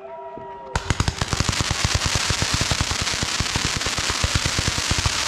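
Fireworks going off in a rapid crackling barrage, about ten sharp bangs a second over a hiss. It starts abruptly about three-quarters of a second in, cutting off a few held whistling tones.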